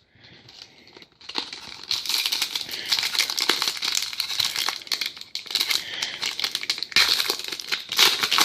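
Plastic wrapper of a trading-card pack crinkling steadily as it is handled and opened by hand, starting about a second in.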